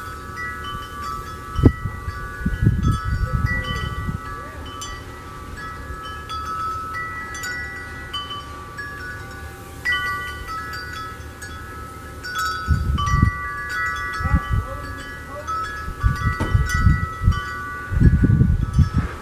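Wind chimes ringing, many notes struck at random moments and overlapping as they ring on. Bursts of low rumble come about two to four seconds in and again through the last seven seconds.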